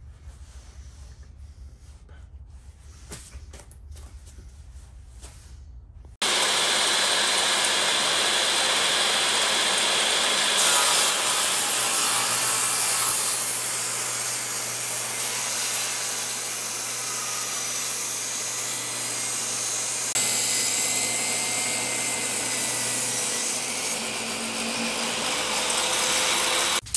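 Table saw running and ripping along a weathered wooden beam, a loud steady whine of blade and motor that starts abruptly about six seconds in and stops abruptly near the end. Before it there is only faint background noise.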